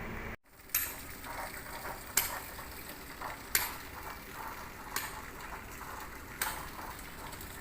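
Sharp clicking taps repeating evenly about every second and a half over a steady hiss of construction-site noise, after a brief dropout about half a second in.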